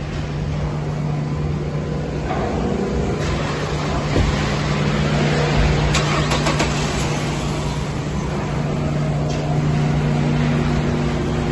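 Mazda L3-DE 2.3-litre four-cylinder engine idling steadily in a 2004 Mazda MPV, with a few light clicks about six seconds in.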